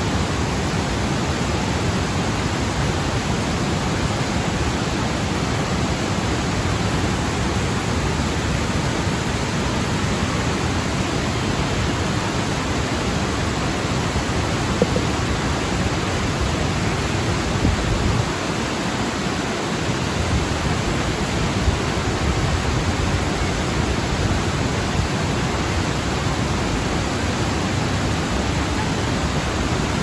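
Steady rushing of a wide, multi-tiered waterfall cascading over rock ledges into white-water rapids.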